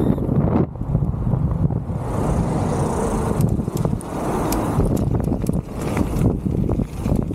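Wind rushing over the microphone and tyre noise from an e-bike ridden fast along a path, with a brief dip about two-thirds of a second in and scattered clicks from bumps in the second half.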